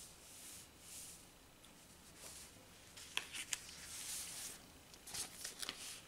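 Sheets of paper being handled and shuffled: faint soft swishes at first, then a run of crisp rustles and small clicks in the second half.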